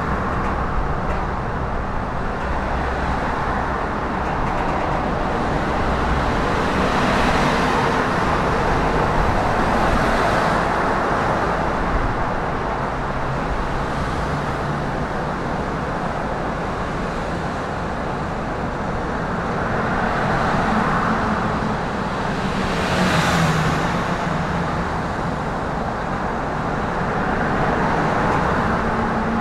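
Road traffic noise: a steady rumble of vehicles, swelling several times as vehicles pass by, most sharply about three quarters of the way through.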